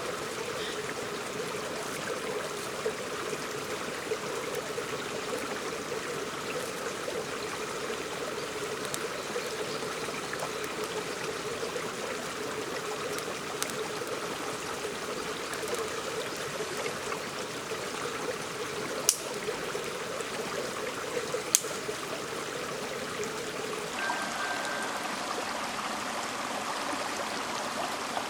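Clear shallow stream babbling steadily over stones, with two sharp clicks partway through. The water's sound shifts in character near the end.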